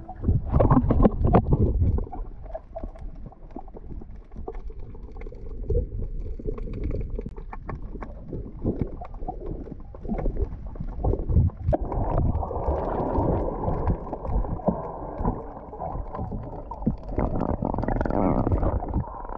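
Muffled underwater sound picked up by an action camera while snorkeling: a low rumble with scattered knocks, clicks and bubbling. About twelve seconds in it turns into a denser rushing water noise.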